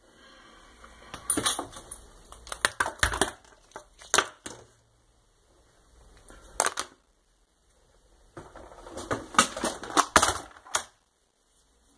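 Clatter of objects and cables being handled on a cluttered desk: bursts of sharp clicks and knocks, with quiet gaps between and one lone knock a little past the middle.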